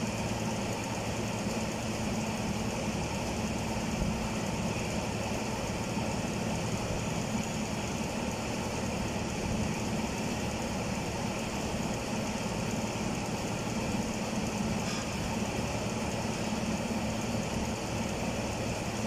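A steady mechanical drone, like an engine idling, running evenly without change.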